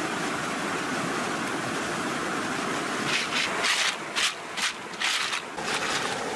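Stream water rushing steadily over rocks. From about three seconds in, a quick run of short rattling clatters: snail shells knocking together in a woven basket.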